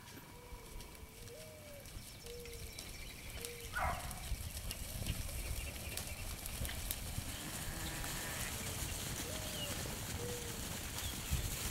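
A flock of ewes and lambs trotting past over grass, with a brief bleat about four seconds in. A bird gives short, low, repeated calls in the first few seconds and again near the end.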